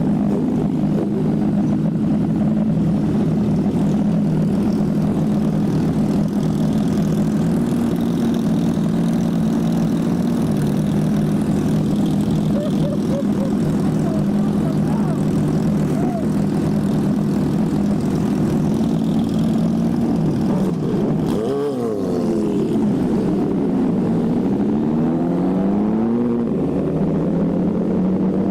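Motorcycle engine running at a steady cruise with a level, droning note. About three quarters of the way through, the engine note dips and then climbs back up in pitch.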